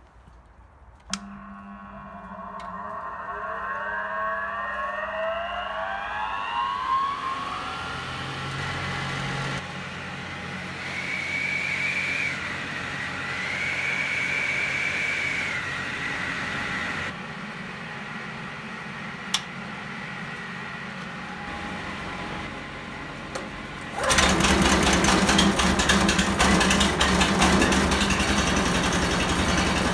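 A motor spins up with a rising whine and runs steadily. About 24 seconds in, a much louder engine sound starts abruptly and runs to the end.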